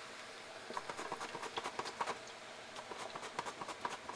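Raw plantain slices deep-frying in hot oil, sizzling with a steady scatter of small, irregular crackling pops.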